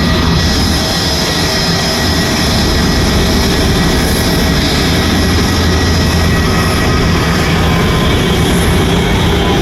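Aircraft engines running at high power during take-off: a loud, steady noise with several steady whining tones held through it.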